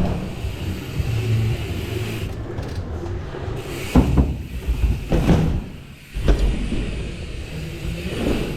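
Dirt jump bike riding: a steady low rumble of tyres rolling, broken by sharp thumps about four, five and six seconds in. A short lull comes just before the last and loudest thump.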